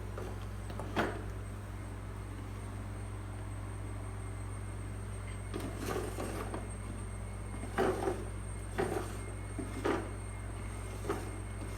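Light knocks and rustles of the plastic push ride-on toy being handled and moved, a few short ones from about halfway on, over a steady low hum.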